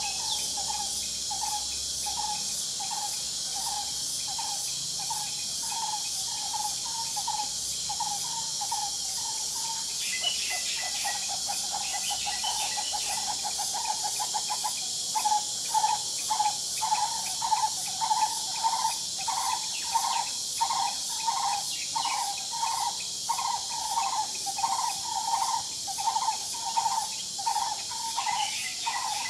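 Steady high-pitched drone of insects in the trees. Over it, a bird repeats one short, low call note about one and a half times a second. Partway through, the note gives way to a faster trill for a few seconds, then returns louder.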